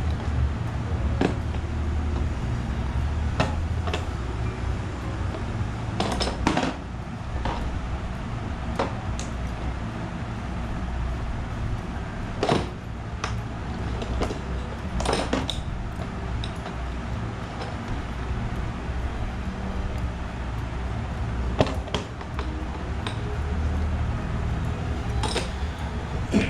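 Plastic toolbox lid being opened and shut on newly fitted stainless steel hinges, giving scattered clacks and knocks every few seconds over a steady low background rumble.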